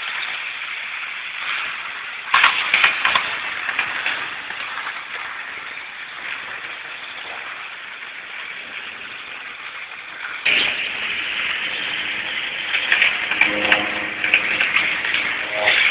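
Hornby model train running on the track close by, its wheels and small electric motor making a steady rattling hiss, with a few sharp clicks about two to three seconds in. It grows suddenly louder at about ten seconds in, and a faint motor whine comes in near the end.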